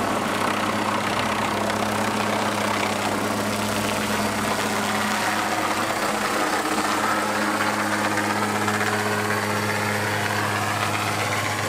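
MQ-8B Fire Scout unmanned helicopter flying overhead: a steady drone of rotor and turbine engine, with a higher whine that rises in pitch over the last few seconds.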